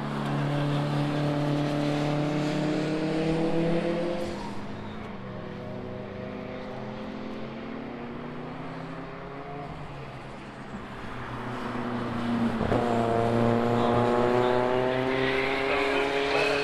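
Race car engines accelerating on the circuit: a rising engine note for the first few seconds that fades away, then another engine note climbing in pitch and getting louder from about two-thirds of the way through.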